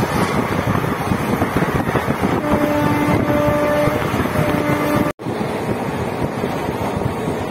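Steady rumble and rush of a moving passenger train heard from its open window, with wind buffeting the microphone. About two and a half seconds in, a horn sounds for over a second, then briefly again, and the sound cuts out for an instant just after five seconds.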